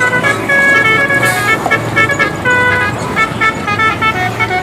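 Multi-tone bus telolet horn playing a tune: a run of short and held horn notes that change pitch quickly.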